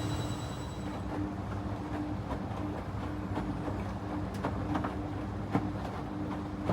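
Panasonic XQG32-A312D compact drum washing machine running with a steady motor hum. A faint high whine stops about a second in, and a few light clicks and knocks from the drum follow.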